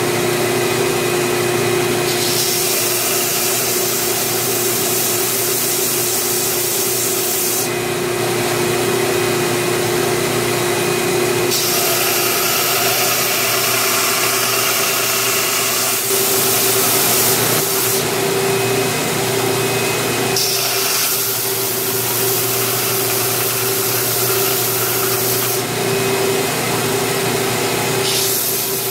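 Belt grinder running steadily while a knife's wooden handle scales and pins are ground flush to the tang. The grinding hiss brightens in stretches of a few seconds each time the handle is pressed to the belt, about four times, under the grinder motor's steady hum.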